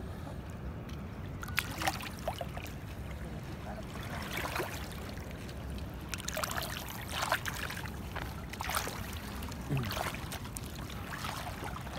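Shallow seawater sloshing and splashing in scattered, irregular bursts as a hand and feet move through it, over a steady low rumble.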